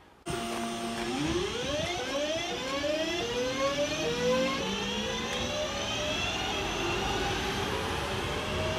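Class 323 electric multiple unit pulling away, its traction inverters whining in a series of rising pitch steps as it gathers speed, over a low rumble of wheels on rail. The sound cuts in suddenly just after the start.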